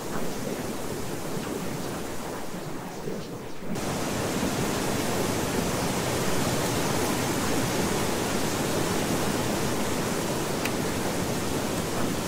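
Steady rushing noise, like heavy rain or falling water, used as the masking sound of a subliminal-affirmation track. It grows fuller and a little louder about four seconds in.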